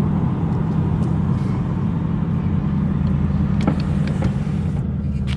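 Ford Mustang GT's V8 engine and tyre noise while driving: a steady low drone at an even pace, with no revving.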